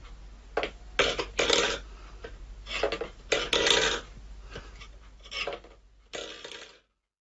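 Stainless steel food bowl scraping and clattering on a wooden floor as a cat paws at it, in a string of short scrapes, the longest lasting about half a second.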